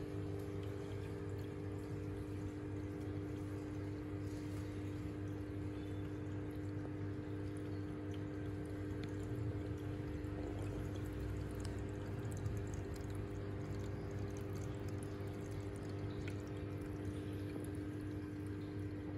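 Small aquarium filter pump running: a steady electric hum with water trickling from its outflow.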